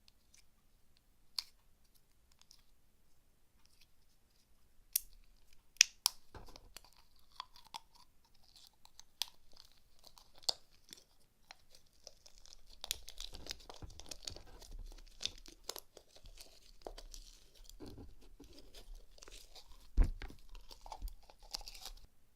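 Hands working slime: sticky, crackling squishes with scattered sharp clicks. The clicking and crackling grows denser about halfway through, and the loudest click comes near the end.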